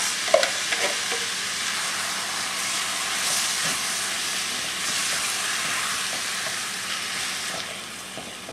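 Tomato sauce sizzling in a hot skillet on browned sausage, onion and garlic as it is poured in and stirred with a spatula. The sizzle dies down near the end.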